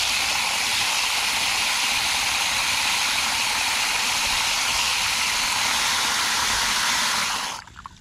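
Garden hose spray nozzle jetting water into a metal coffee can to fill it: a steady, loud hiss of spray splashing into the water, which cuts off suddenly about seven and a half seconds in.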